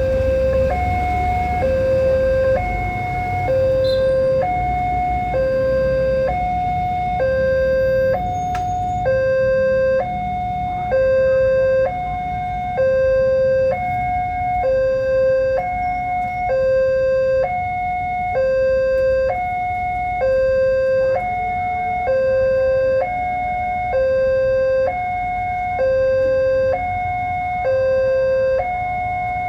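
Railway level-crossing warning alarm: a two-tone electronic signal switching between a lower and a higher tone about once a second, the sign that a train is approaching the crossing. A low rumble runs underneath, heaviest at the start.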